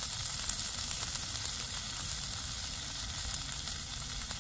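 Birria taco frying on a hot flat-top griddle: a steady sizzle with faint crackling pops.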